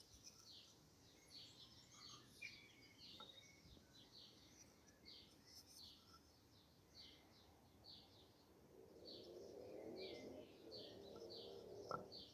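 Faint, quick chirps of a small bird, repeated two or three times a second, with a faint low rumble joining about nine seconds in and a single click near the end.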